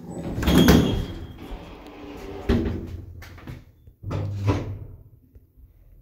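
Passenger lift's doors being worked in a 1991-built lift: a loud clatter about half a second in, a sharp clunk at about two and a half seconds, and a third clunk about four seconds in with a short low hum.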